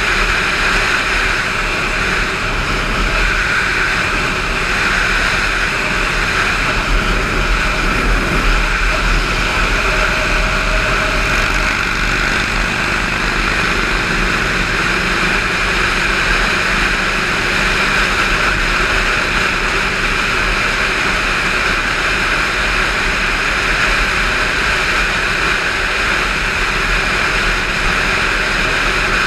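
Indian motorcycle cruising steadily at highway speed: constant wind rush over the microphone with the engine's low drone underneath.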